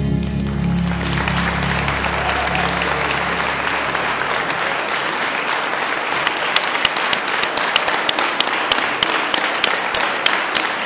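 An audience applauding as the slow waltz music ends: the last chord fades in the first second, its low bass note hanging on for a few seconds under the clapping. Toward the end the applause thins into sharper, more separate claps.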